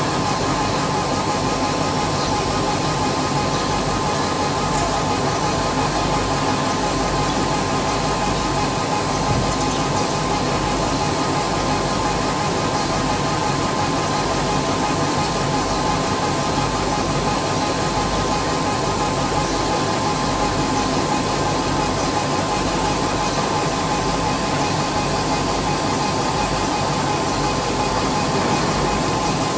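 150 W CO2 laser cutting and engraving machine running as it engraves glass: a steady mechanical whir with a constant high whine.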